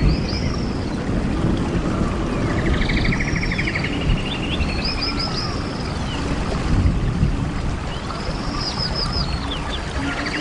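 A bird repeating the same phrase about four times: a few quick, high arching whistled notes and then a fast buzzy trill of about a second. A steady low rumble runs underneath.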